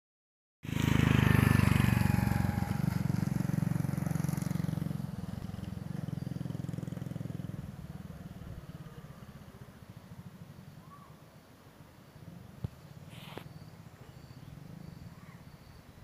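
Motorcycle engine running, loud at first and fading steadily over about ten seconds. Near the end there is a single sharp click and faint high chirps repeating about twice a second.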